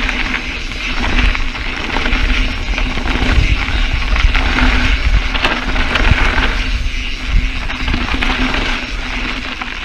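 Mountain bike riding over a dry dirt and gravel trail: tyres crunching and rolling over the ground, with the bike rattling and heavy wind rumble on the action-camera microphone.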